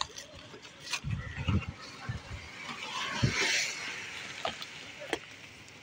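Cardboard shipping box being handled and turned over: a few dull bumps, a scraping rustle of cardboard and packaging, and a couple of light clicks.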